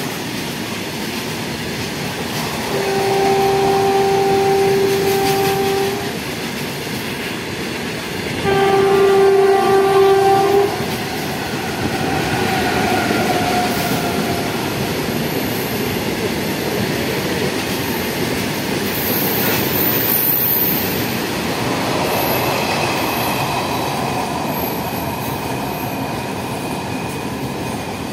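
Loaded open freight wagons rolling past with a steady rumble and the clatter of wheels over rail joints. A train horn sounds two blasts of two to three seconds each, about three seconds and eight seconds in.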